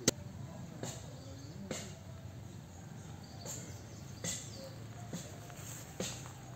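A series of sharp knocks, roughly one a second, the first near the start much louder than the rest, over a faint steady outdoor background.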